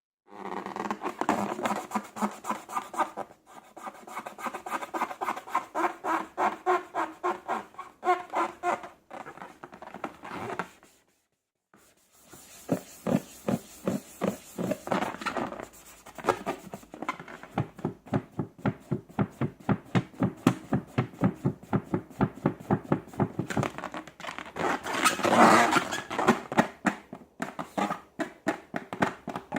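Hands working slime, making a rapid run of wet, squelching clicks that stops briefly partway through and then starts again.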